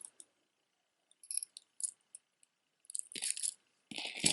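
Small metal jewelry pieces (chains, pendants and rings) clinking and jingling as they are handled, in a few light clicks and then louder jingles about three seconds in and near the end.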